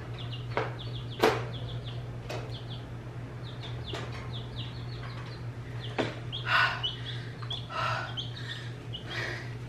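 Baby silkie chicks peeping over and over in short high chirps. A few sharp clicks and some rustling come from the wire cage as food is put in, the loudest click about a second in.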